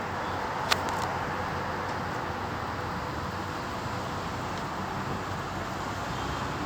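Steady wash of road traffic noise, with a single short click about a second in.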